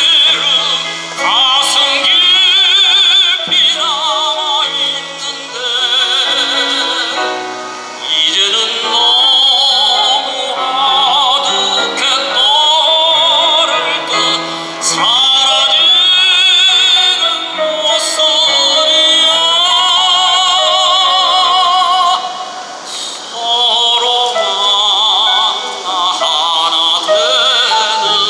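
A tenor sings a Korean art song in operatic style with wide vibrato, accompanied by a grand piano. He sings long held phrases with short breaths between them.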